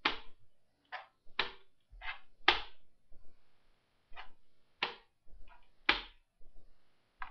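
Quick wooden clacks of chess pieces being set down on a wooden board and chess clock buttons being hit in fast blitz play under time trouble, about ten sharp knocks, often in pairs about half a second apart.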